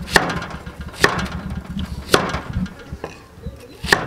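Kitchen knife chopping through an onion onto a thick wooden chopping block: four sharp knocks about a second apart.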